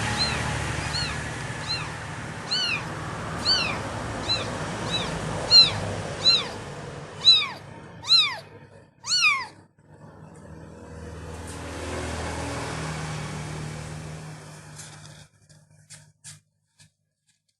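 A kitten mewing in a quick run of short, high-pitched mews, about one to two a second. The mews grow louder and longer from about seven seconds in, then stop near the ten-second mark. A steady background hiss fades out shortly before the end.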